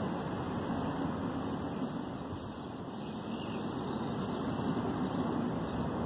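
Axial SCX24 Deadbolt micro RC crawler's small 88-turn electric motor and worm-gear axles whirring steadily as it crawls over rocks, dipping briefly about halfway through.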